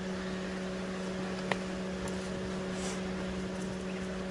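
A steady machine hum under a light hiss, with one faint click about a second and a half in.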